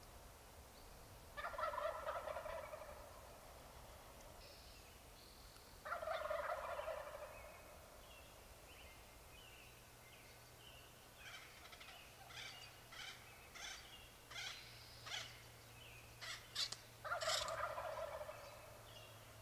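A wild turkey gobbling three times, each gobble about a second and a half long, the last near the end. Between the second and third gobbles comes a quicker run of short, sharp calls.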